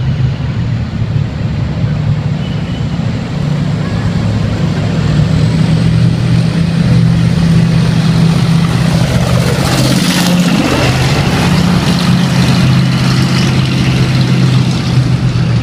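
Tanks' heavy diesel engines running steadily with a deep, loud drone as the armoured column drives by in a parade. About ten seconds in, a vehicle passes close, its sound sweeping down and back up.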